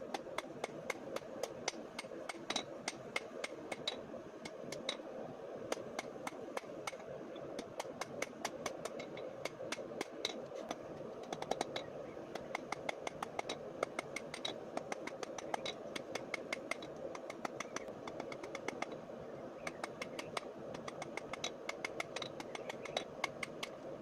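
Hand hammer striking hot spanner steel on an anvil, drawing out the jaws and handle of a pair of pliers: a quick, uneven run of sharp metallic blows, several a second with brief pauses, over a steady rushing noise.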